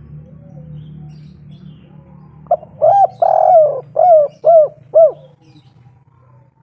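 Spotted dove (derkuku) cooing one song phrase: a couple of short coos and a longer drawn coo, ending in three short evenly spaced coos about half a second apart, which is the 'kuk 3' song type. Faint chirps from other birds and a low hum sit underneath.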